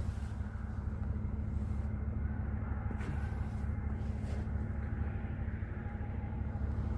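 Vehicle engine running steadily: a low, even hum with no changes in speed.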